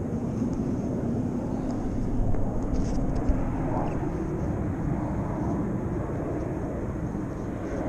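Steady low rumble of wind buffeting the microphone, with a few small knocks two to three seconds in.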